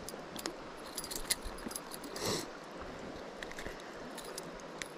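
Scattered small clicks and light metallic rattles as a freshly caught smallmouth bass and the spinner lure are handled, over the steady rush of a creek. A brief rustle about two seconds in.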